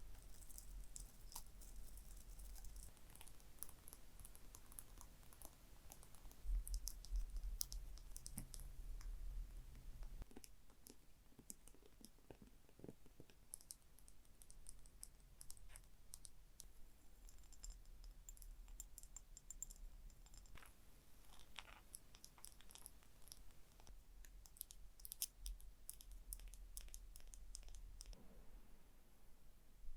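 Gentle tapping and scratching on small objects: a steady run of quick, light clicks and scrapes, busier in two stretches.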